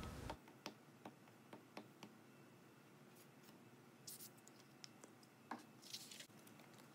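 Near silence with faint sounds of a glue stick rubbed over black construction paper: scattered light taps and clicks, and two brief scratchy strokes, about four seconds in and about six seconds in.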